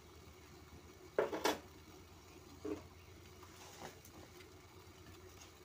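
Water boiling in a steel pot with butterfly pea flowers, cloves and cardamom, a steady low bubbling hum. A couple of sharp knocks sound just over a second in, and a smaller one follows about a second and a half later.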